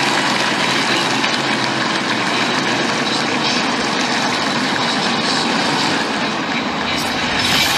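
Steady engine and track noise of NASCAR Cup stock cars circulating at pace speed under caution.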